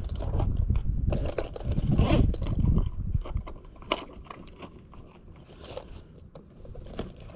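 Rustling and clinking of tools being handled in a zippered tool bag. It is busiest for the first three seconds, then thins to scattered light clicks.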